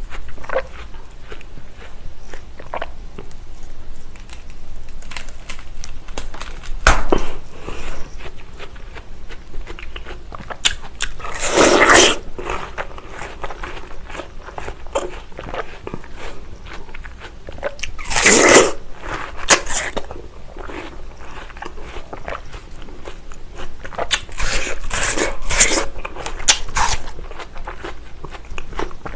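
Close-miked eating of fresh watermelon: crunchy, juicy bites into the red flesh and chewing. There are louder wet bursts about 7, 12 and 18 seconds in and a cluster near the end.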